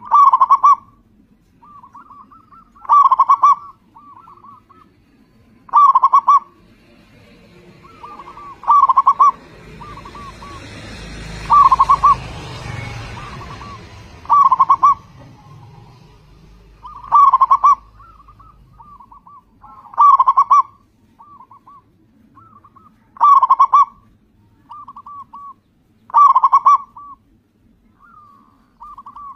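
Local Indonesian zebra dove (perkutut) calling: a loud cooing phrase about every three seconds, with softer short notes between the phrases. A broad rushing noise swells and fades in the background about ten to fourteen seconds in.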